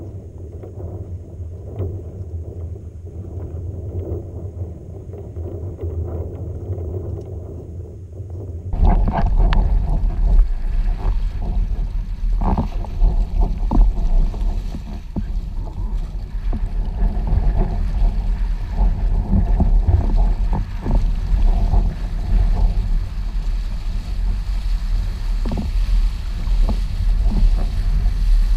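Wind rumbling on the camera's microphone together with water rushing and splashing against a windsurf board. Muffled and fairly quiet at first, it turns suddenly louder and fuller about nine seconds in, with scattered splashes as the board planes through the chop.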